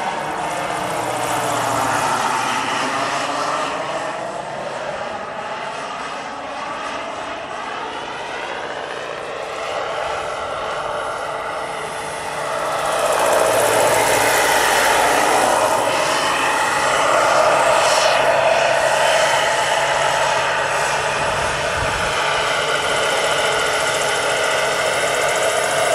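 Turbine engine and rotor of a giant-scale model AH-64 Apache helicopter in flight: a steady turbine whine with the blades' chop. Its pitch swoops in the first few seconds, and it grows louder about halfway through as the helicopter flies in close.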